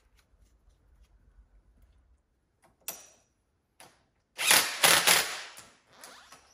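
Yellow DeWalt cordless drill running in two short bursts about four seconds in, after a couple of light clicks.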